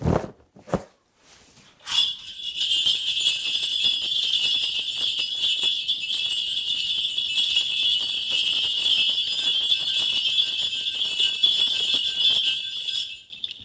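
A Korean shaman's cluster of ritual bells shaken continuously in a dense, steady jingle, starting about two seconds in and stopping just before the end; it is rung to call on the spirit before a divination.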